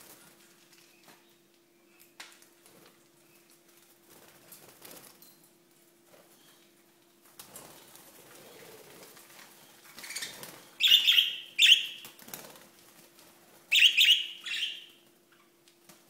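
Budgerigars flapping their wings while scrambling over hanging carrot tops. There are soft scattered flutters at first, then two loud flurries of wing beats in the second half.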